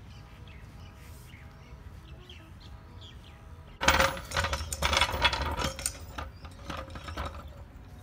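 Steel low-profile trolley jack being shoved across stone pavers under a car: a sudden burst of rattling from its wheels and frame about four seconds in, lasting about two seconds and dying away.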